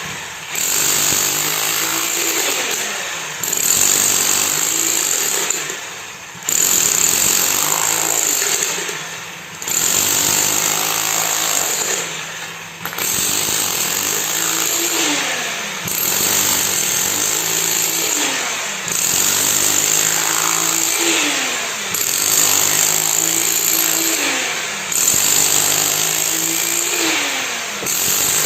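Engine-driven concrete machine running under a repeating load, its noise dipping and swelling about every three seconds as the engine pitch sags and picks up again.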